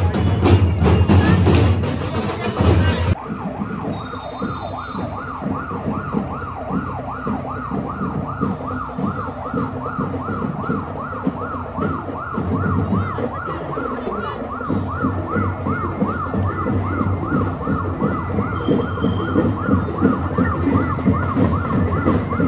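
Parade band music with heavy drums for about three seconds, then it breaks off and an electronic siren in yelp mode takes over, its pitch rising and falling about three times a second, steady to the end.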